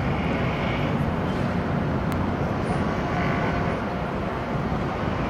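Steady city traffic noise, a continuous low rumble with no single event standing out.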